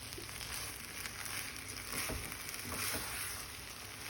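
Rice, onions and black beans sizzling steadily as they fry in oil in a pot, with a couple of soft knocks about two to three seconds in.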